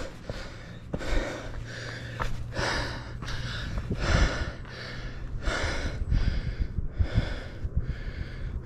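A person breathing hard and fast from exertion while climbing a steep trail on foot: a quick run of heavy breaths, with a few low thumps.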